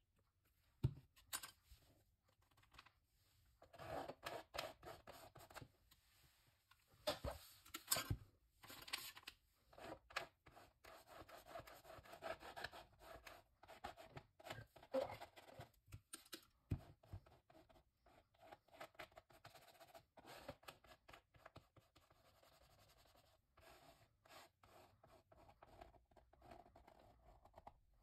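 Faint scraping and rubbing of a plastic scraper dragged through wet acrylic paint on the painting, in short repeated strokes with a few sharp clicks in between.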